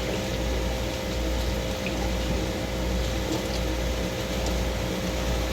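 Steady hum of a room air conditioner, with liquid sounds as Bragg's liquid aminos are poured over fried rice in a pot.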